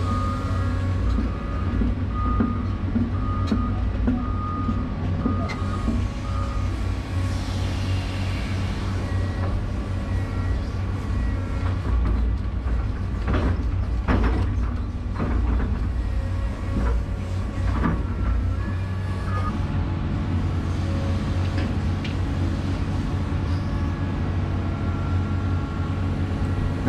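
Hydraulic excavator's diesel engine running steadily under load, heard from inside the cab, as the bucket digs and lifts soil inside a slide-rail shoring box. A repeating backup-alarm beep sounds for the first several seconds, and a few clanks and knocks come near the middle.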